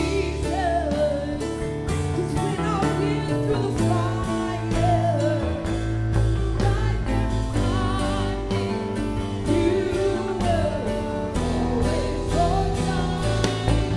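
Gospel worship music: a voice singing freely over a band holding sustained chords with a steady beat.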